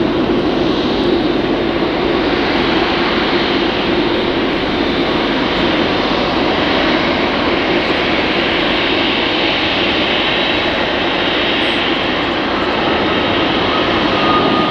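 Four jet engines of a Boeing 747 freighter running at taxi power: a steady, loud rushing noise with a faint high whine above it.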